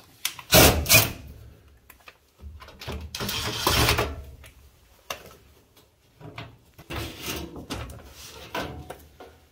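A DeWalt cordless driver runs in short bursts, backing screws out of a sheet-metal furnace access panel, and the panel clatters as it is handled and pulled off. The loudest bursts come about half a second in and again around three to four seconds in, with lighter clattering near the end.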